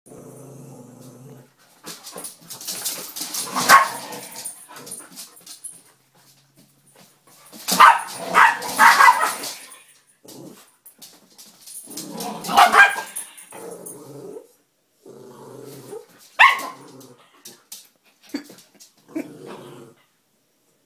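Chihuahua growling low and breaking into several loud snarling barks, with one sharp rising yelp about two thirds of the way in: a territorial warning to a husky that wants to play.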